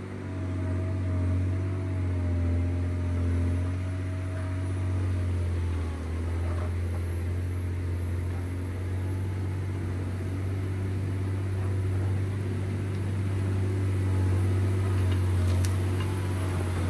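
John Deere 670GP motor grader's diesel engine running steadily under working load, a low drone that swells and eases slightly.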